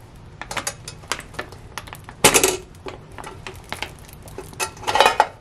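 Metal clinks and rattles of a stainless steel mess-kit pan and its folding wire handle being handled in the foil-lined bag of a portable electric lunch-box oven. Two louder, brief scrapes come about two seconds in and near the end.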